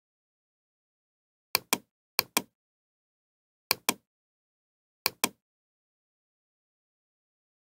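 Computer mouse button clicking: four quick pairs of sharp clicks in the first five seconds or so, with silence between.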